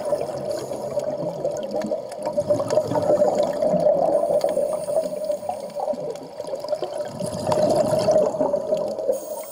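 Scuba divers' exhaled air bubbling out of their regulators, heard underwater, in a rough watery rush that swells twice: about two and a half seconds in and again near the end.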